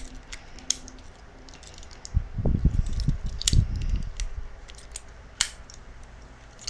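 Parts of a Voltes V GX-31V figure being handled and fitted together, making scattered light clicks. A cluster of dull knocks comes about two to four seconds in, and a sharp click about five and a half seconds in.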